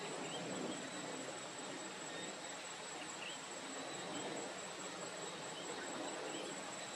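Insects, crickets or similar, keeping up a steady high-pitched drone over a low rumbling outdoor noise, with a few faint short chirps.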